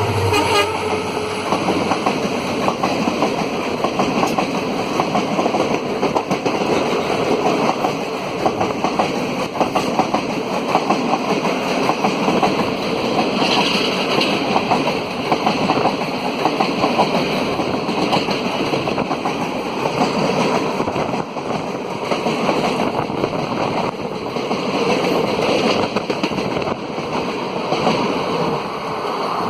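Passenger coaches of an express train rushing past at close range: a loud, steady, dense clatter of wheels on the rails with a rush of air.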